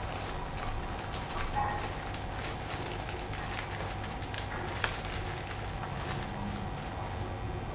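A small foil spice packet crinkling and rustling as it is handled and picked through by hand, with irregular crackles and one sharper click about five seconds in.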